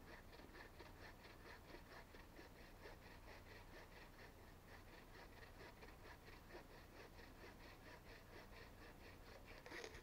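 Hand frame saw cutting through a log in quick, even strokes, about four or five rasps a second, faint, with a louder stroke near the end.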